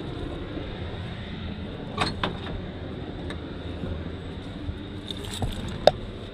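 A few light clicks and knocks, the loudest near the end, as a 1985 Chevy C10 pickup's driver door is opened and someone climbs into the cab. A steady low hum runs underneath.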